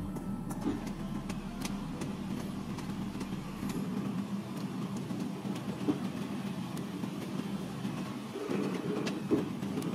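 Steady low rumbling noise, with a few light clinks about six and nine seconds in.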